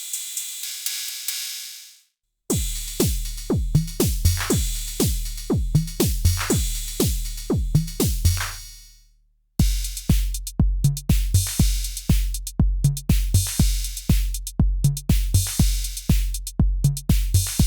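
Arturia DrumBrute analog drum machine playing a programmed beat. A cymbal-like hiss fades out first, then a kick-heavy pattern with falling-pitch drum hits plays and dies away. A denser beat with a steady kick starts about halfway through.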